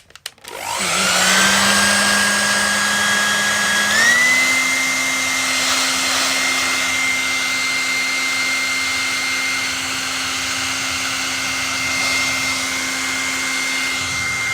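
Hair dryer switched on, its motor spinning up with a rising whine, then stepping up to a higher speed about four seconds in and blowing steadily at that higher pitch.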